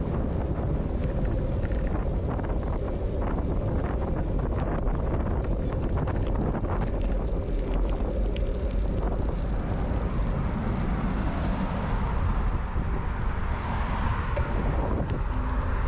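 Wind buffeting a bicycle-mounted GoPro's microphone while riding, a steady low rumble and hiss, with the camera's wind reduction switched off. A louder hiss swells and fades about three quarters of the way through.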